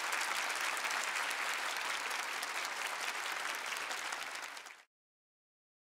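Large audience applauding, a dense, steady patter of many hands clapping that cuts off suddenly near the end.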